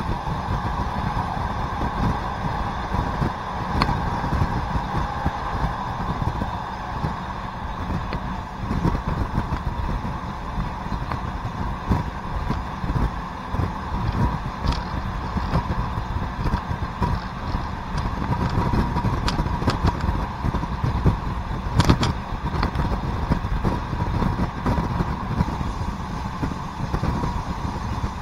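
ALn 668 diesel railcar under way, heard from on board: its engine runs steadily under the wheel-on-rail rumble and rattling, with scattered clicks and one sharper knock about three-quarters of the way through.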